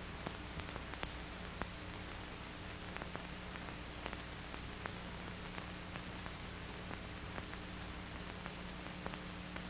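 Background noise of an old film soundtrack: a steady hiss with a low hum, and scattered faint clicks and crackles.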